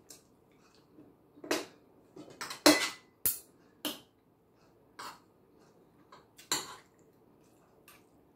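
A metal fork and spoon clinking and scraping against ceramic dishes as a meal is eaten: scattered short clinks about a second apart, the loudest a brief scrape a little under halfway through.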